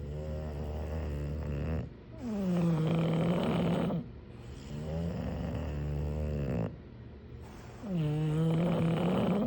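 English bulldog snoring in its sleep: four long snores in a slow, even rhythm, each about two seconds, the second and the last louder, with a pitch that drops at the start and then holds.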